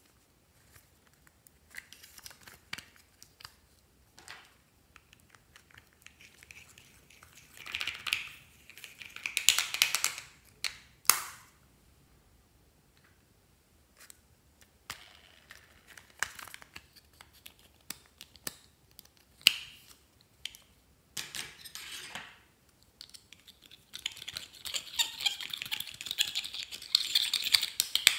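Handling noises over a tray of slime: small plastic clicks and taps and scratchy scraping, in scattered bursts. The longest and loudest, near the end, is pressed eyeshadow being scraped out of a plastic compact with a small tool.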